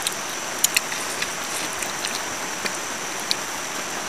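Light crackles and ticks as fingers handle small cleaned fish on a banana leaf, scattered through a steady hiss with a thin high whine.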